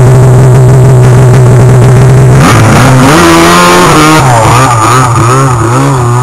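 Two-stroke snowmobile engine running loud and steady, then revving up and down over and over from about two and a half seconds in, its pitch rising and falling in repeated swoops.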